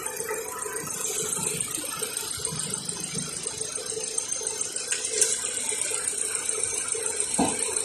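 Kia Rio engine idling steadily, a smooth hum with a fine, fast, even ticking on top.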